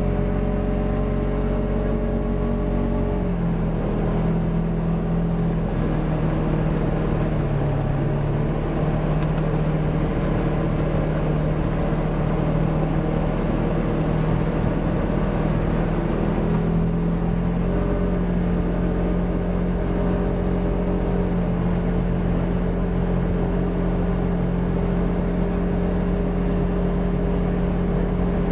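Polaris RZR 1000 side-by-side's engine running under way at fairly steady speed, its pitch shifting about three and a half seconds in and again around seventeen seconds in.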